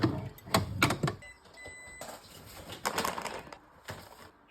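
Groceries being handled and put away: several sharp knocks and clatter of packages in the first second, then softer rustling and knocks. Two short high electronic beeps sound just over a second in.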